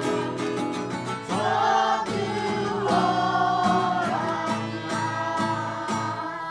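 A school children's choir singing together over music with a steady beat of about two beats a second.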